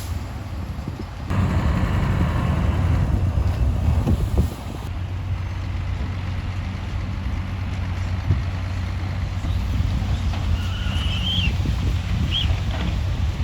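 Diesel engine of heavy earthmoving machinery running with a low drone and irregular clanking. About a second in, it grows louder with a rushing sound for about three seconds, then settles back. Near the end come two short high squeaks.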